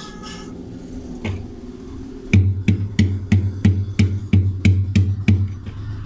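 Rhythmic knocking: about ten evenly spaced strikes, roughly three a second, each with a low thud, over a faint low hum that runs on after the knocking stops.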